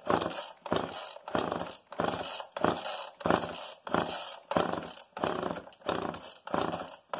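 Homelite XL two-stroke chainsaw being pull-started: about a dozen quick yanks of the recoil starter cord, each a short rasping crank of the engine, roughly one every half second or so. The engine does not catch between pulls.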